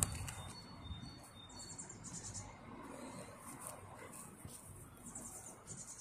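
Staffordshire bull terrier digging in a grass lawn: faint scratching of paws and nose in the soil. Short high chirps recur throughout.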